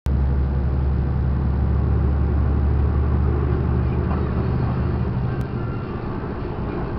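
Heavy truck's diesel engine droning steadily, heard from inside the cab, with road noise. About five seconds in, the low drone weakens and breaks up for a moment.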